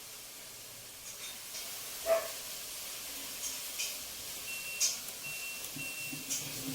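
LG front-loading washing machine running, with a steady hiss of water jets spraying into the drum. Two sharp clicks about two and five seconds in, and a thin high tone sounding in short spells through the second half.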